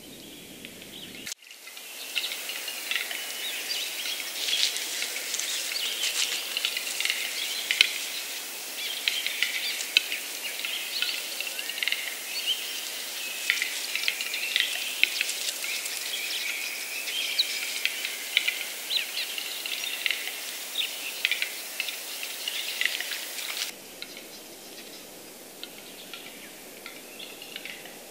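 Western capercaillie lek: rapid clicks and scratchy, hissing whetting phrases of displaying cocks, with other bird calls mixed in. The sound starts abruptly about a second in and falls much quieter near the end.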